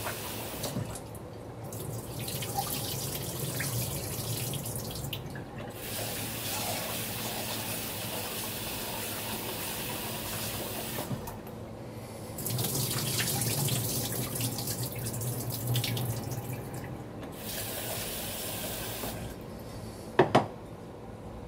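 Kitchen tap running into a sink while something is washed under it, the water shut off and turned back on several times. Near the end a pot is set down with a sharp double knock.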